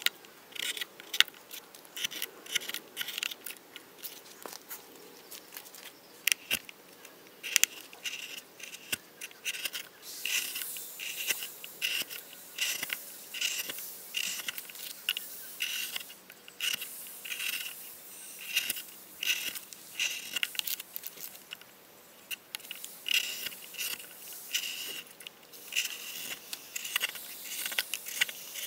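Gouge cutting into the hollow of a birch kuksa blank: a long run of short, crisp slicing and scraping strokes in quick clusters, with brief pauses between them.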